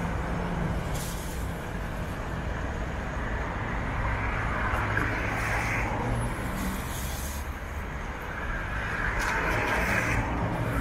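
Buses running in a bus terminal: a steady low engine drone that swells twice, with a few short hisses of compressed air from the buses' air brakes.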